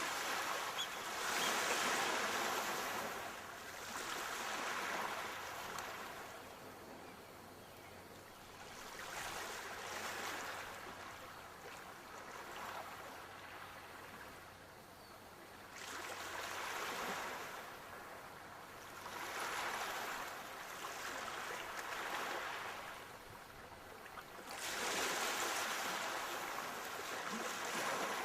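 Sea waves breaking and washing in. Each one is a surge of rushing noise that swells and fades, about every three to five seconds, with quieter lulls between.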